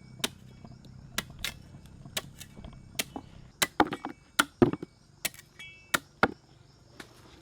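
Sharp chopping strikes on cane, about fifteen blows at an uneven pace, coming thicker and louder in the middle.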